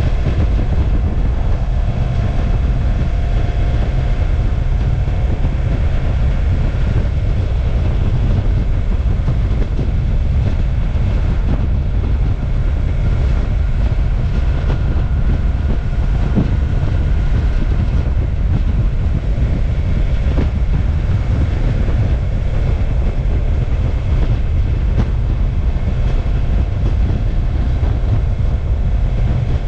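Motorcycle riding along at a steady pace: the engine runs continuously under a loud, dense low rumble, and its tone drifts a little in pitch now and then.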